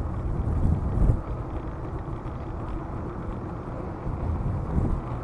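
Wind buffeting the microphone of a camera on a moving bicycle: an uneven low rush that swells briefly about a second in.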